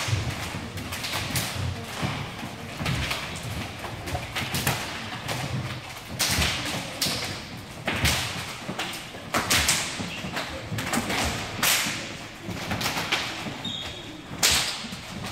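Several judoka doing fast throw-entry pulls on rubber resistance bands: an irregular run of thuds from feet stepping on the wooden floor and swishes of the bands, several a second. A brief high squeak near the end.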